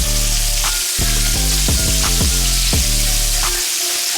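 Chicken frying in hot grease, a steady sizzle, under background music with a heavy bass and a steady beat.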